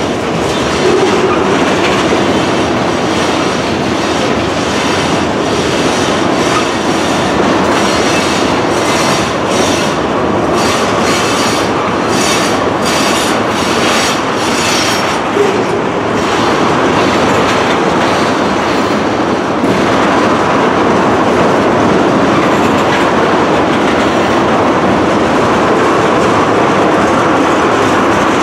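Long train of tank cars rolling past close by: a steady loud rumble of steel wheels on rail. About a third of the way in comes a run of evenly spaced wheel clacks over rail joints.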